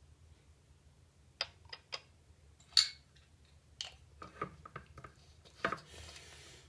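Scattered light clicks and taps of a metal jigger, a glass and a bottle cap being handled, the sharpest just under three seconds in and a quick cluster near five seconds, then a faint soft hiss near the end.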